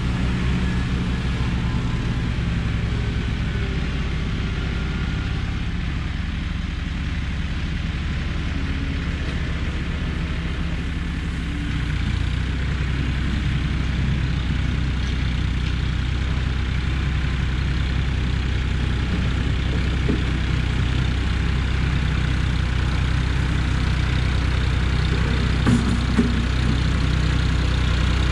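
Farmtrac 60 diesel tractor engine running steadily under load as the tractor works dirt with its blade, getting louder as it comes closer. Two short metallic knocks sound near the end.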